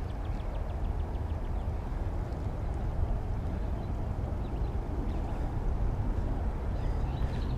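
Steady low rumble of wind buffeting the camera microphone, with a few faint bird chirps.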